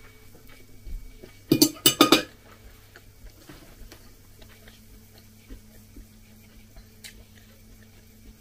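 A person chewing a mouthful of meat-filled pancake, with faint scattered clicks of a fork and plate. Two loud short noises come close together about a second and a half in.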